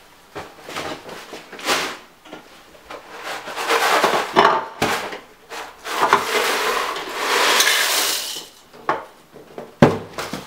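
Kellogg's Corn Flakes rustling and pouring from the box into a bowl, with the bowl and box knocking on a countertop and a louder knock near the end as the box is set down.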